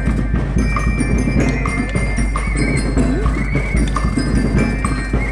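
School rhythm band playing: a steady beat of drums and percussion under a bright, ringing bell-like melody from mallet percussion.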